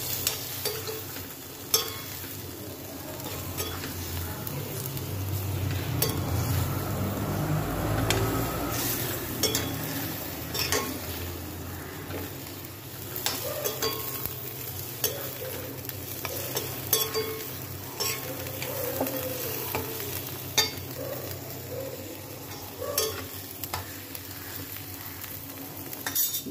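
Small bitter gourds sizzling as they sauté in oil in a black frying pan. The steady sizzle is broken now and then by a spatula stirring, with sharp scrapes and clicks against the pan.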